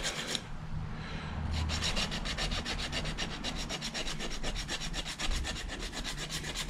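Quick, even back-and-forth scraping strokes of an abrasive rubbing the metal contacts of an LED bicycle tail light clean, stopping briefly just after the start and then resuming.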